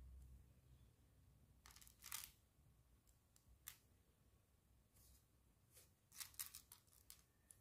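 Mini plastic building bricks clicking faintly as they are pressed together and picked out of a loose pile: scattered small clicks, with a short cluster about two seconds in and a quicker run of them near the end.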